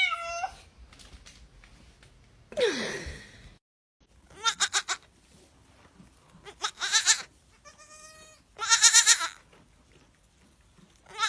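An animal making short wavering calls, repeated several times one to two seconds apart.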